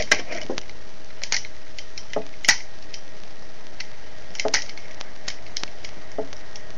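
Hard plastic toy parts clicking and tapping a handful of times, irregularly spaced and loudest about two and a half seconds in, as the helicopter Zord's drop-down hook is worked loose, over a steady hiss.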